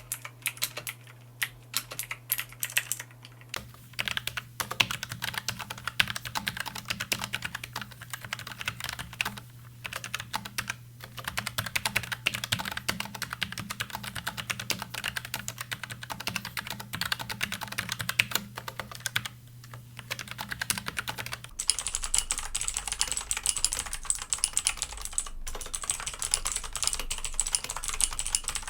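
Rapid typing on mechanical keyboards, three boards in turn: a Tecware Spectre Pro, then a Logitech MX Mechanical from about four seconds in, then a Redragon K688 for the last seven seconds or so. The Redragon's clicks sound brighter and higher.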